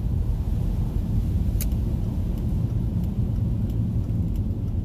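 Steady low road and engine rumble inside a Volvo's cabin while driving on a wet highway. Scattered light ticks of raindrops hit the windshield, one louder about a second and a half in.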